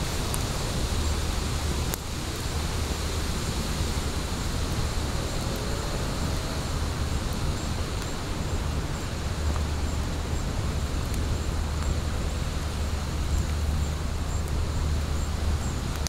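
Wood fire burning in a fire pit: a steady hiss with a few faint crackles, over a low steady rumble.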